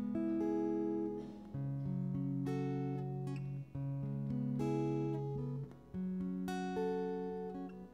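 Acoustic guitar strumming sustained chords, with a new chord struck about every two seconds.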